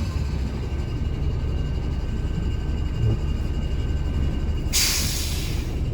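Mercedes-Benz O307 bus's diesel engine rumbling low and steady, heard inside the bus, with a faint steady whine over it. About five seconds in, a sharp hiss of compressed air lasting about a second, from the bus's air system.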